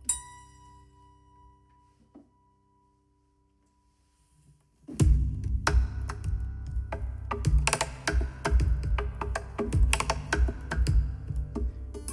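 Steel-string acoustic guitar: a note rings out and fades over about two seconds, then a near-silent pause. About five seconds in, loud percussive strumming starts, with thumps and knocks on the guitar body mixed in.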